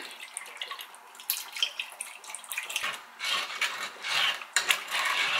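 Milk pouring from a carton into a saucepan, faint at first. From about a second and a half in, a kitchen utensil knocks and scrapes against the non-stick pan again and again as cooked pumpkin and milk are mashed and stirred.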